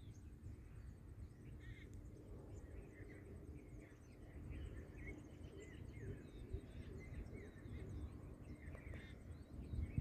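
Many small birds chirping and calling in short, scattered phrases, over a low, uneven rumble.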